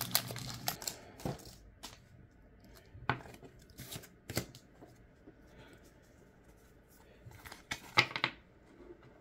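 A Pokémon booster pack's foil wrapper tearing and crinkling open for about the first second, then scattered soft flicks and slides of trading cards being handled and squared up in the hand, with a small cluster of them near the end.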